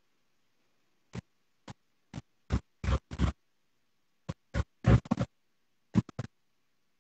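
Crackling static on the live-stream audio: about a dozen short, irregular crackles and pops with silence between them, the heaviest around three and five seconds in.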